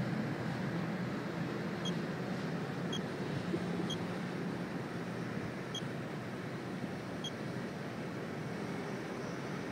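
Radex handheld dosimeter chirping five times at irregular intervals, short high beeps, each marking one detected radiation count at a low background rate. Under them runs a steady low outdoor rumble.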